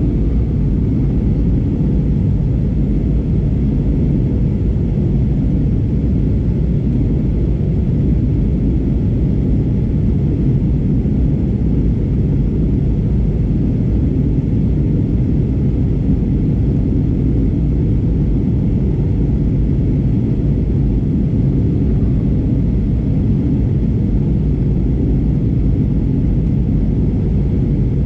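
Steady, unchanging low rumble of airliner cabin noise inside an Airbus A320neo in flight: engine and airflow noise heard from a window seat.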